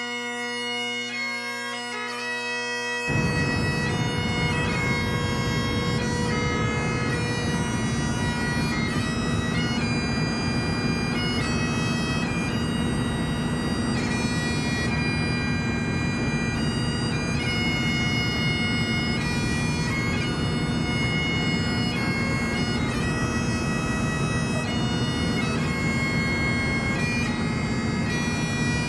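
Bagpipe music: a tune played over a steady drone, growing fuller and louder about three seconds in.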